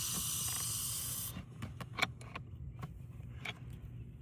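A steady hiss of water rushing through the supply as it is turned back on to the repaired frost-free faucet, stopping abruptly about a second in, then a few light clicks and knocks.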